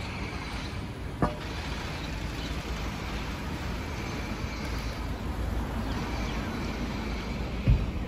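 Steady city street traffic noise from cars on the road, with two brief thumps, about a second in and near the end.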